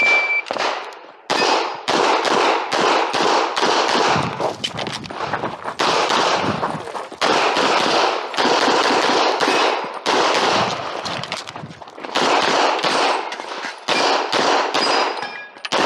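A shot timer's start beep, then rapid strings of handgun shots fired in quick pairs and runs with short breaks between them: a practical-shooting stage run against the clock.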